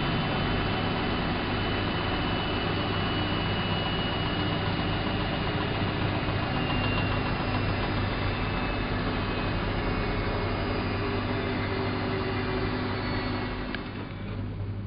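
Elin WM26AAA washing machine running: a steady motor hum with a thin high whine. A click comes near the end, and the sound drops and dulls after it.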